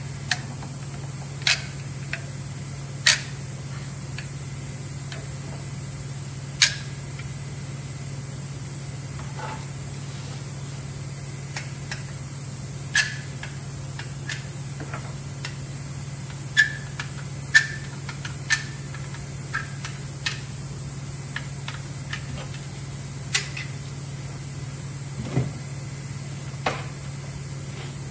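Hand caulking gun being worked while laying a bead of silicone: scattered sharp clicks and light knocks from the trigger and plunger rod and from handling the gun against the panel. A steady low hum runs underneath.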